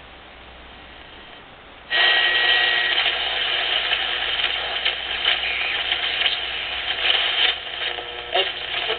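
Ten-Tec 1054 regenerative shortwave receiver's speaker giving a low hiss, then, about two seconds in, a sudden loud rush of static with a brief steady whistle. Crackling and clicking follow as the tuning knob is turned across the band.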